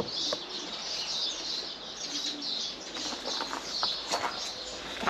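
Small birds chirping busily and continuously, with a pigeon cooing low underneath a couple of times. A few faint knocks sound now and then.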